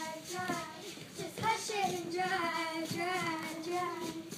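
Young girls singing a song, holding long, steady notes.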